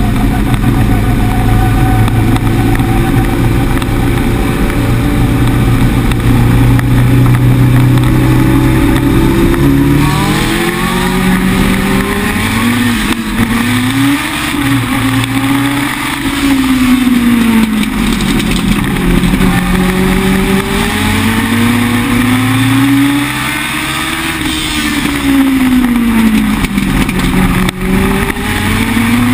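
Legend race car's Yamaha four-cylinder motorcycle engine at racing speed, heard from inside the cockpit. It holds a high, steady pitch for about ten seconds, then rises and falls again and again as the driver lifts and gets back on the throttle through the turns.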